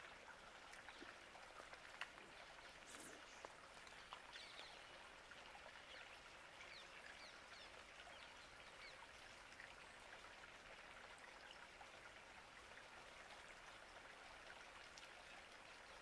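Near silence: faint outdoor ambience with an even hiss and a few soft ticks.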